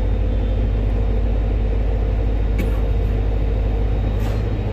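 Mercedes-Benz M904 four-cylinder diesel engine running steadily under throttle, turning the bus's Allison 2000-series automatic transmission in second gear with the drive wheels lifted and spinning free.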